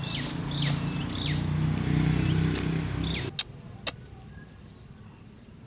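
An engine running steadily as a low hum, with high falling chirps over it; about three seconds in it cuts off suddenly, leaving a quieter background with a few sharp clicks.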